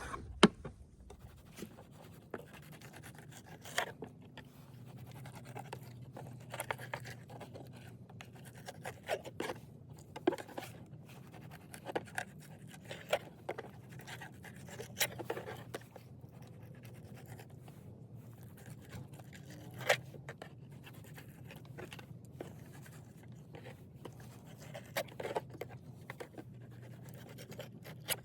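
Knife scraping and cutting on crappie as they are filleted on a board: irregular short scrapes, cuts and clicks, with a low steady hum underneath.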